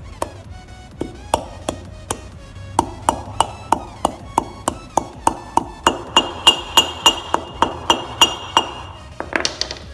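Small hammer tapping a new grease seal into a brake drum hub over the inner wheel bearing, driving it in evenly to seat it. A quick run of light metallic taps, about three a second, with a ringing tone in the later strokes. Background music plays underneath.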